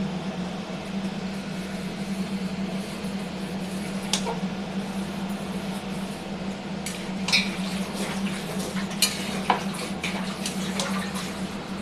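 Chicken curry cooking in a pot: a steady sizzle under a low hum, with a metal spoon clinking against the pot once about four seconds in and several times in the second half as it is stirred.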